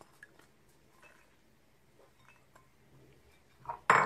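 Soaked soybeans being scooped by hand into a ceramic cup: faint light clicks, then one louder clink of the cup near the end.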